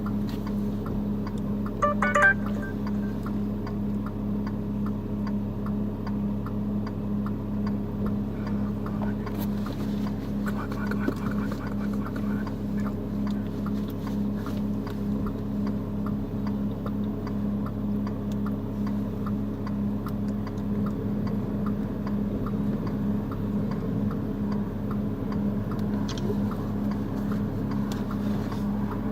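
A vehicle's engine running at a steady idle, heard from inside the cabin as an unchanging hum, with faint regular ticking.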